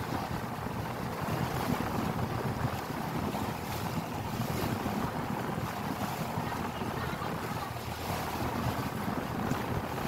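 Wind buffeting the microphone and water rushing past a small boat under way on choppy sea, with a faint steady low hum underneath.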